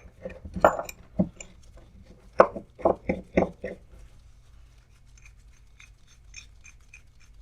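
Small metal parts of a mini drill-press vise being handled and set down on a workbench during reassembly: a quick run of light clicks and knocks in the first few seconds, then only faint ticks.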